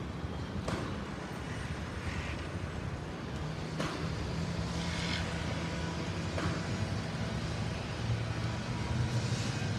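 Steady low rumble of motor vehicle engines, with a few short clicks.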